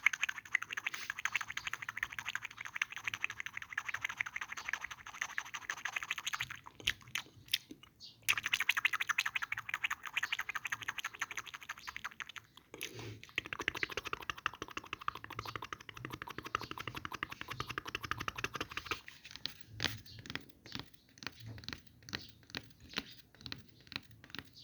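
Close-miked foam being squeezed and crushed, a dense rapid crackling in long stretches with short breaks. Toward the end it slows into separate crunches, a few a second.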